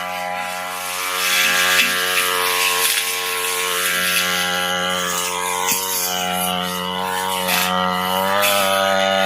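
Brush cutter engine running at high throttle as its blade cuts through thick napier grass, the pitch dipping and recovering a little under load and climbing slightly near the end.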